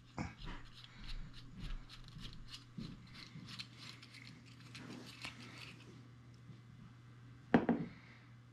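Small threaded metal and plastic parts of a Maglite flashlight head being unscrewed by hand, giving a quick run of small dry clicks and scrapes for about six seconds. One louder knock comes near the end.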